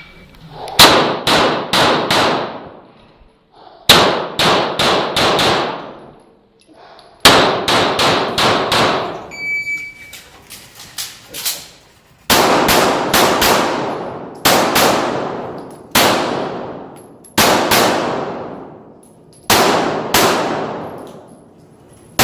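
Rapid pistol fire from a CZ Shadow 2, shot in quick strings of four or five and then in pairs a second or two apart, each shot trailing off in a ringing tail. A short electronic beep from a shot timer sounds about ten seconds in.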